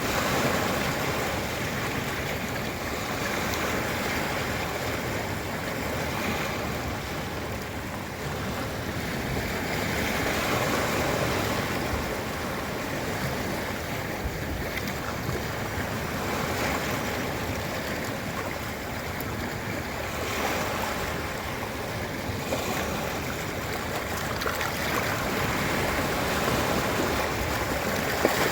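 Ocean surf breaking on a beach: a continuous wash of waves that swells and ebbs every several seconds.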